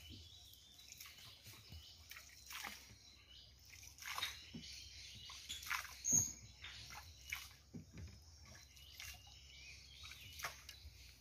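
Quiet outdoor ambience with scattered soft, irregular crackles and taps and one short high chirp about six seconds in.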